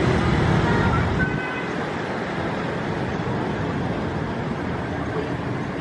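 Vehicle noise: a low rumble that falls away about a second and a half in, leaving steady traffic noise.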